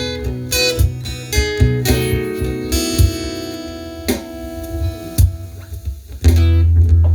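Instrumental music led by guitar over a bass line, with no singing. A chord rings out and fades in the middle, and the bass comes back in loudly about six seconds in.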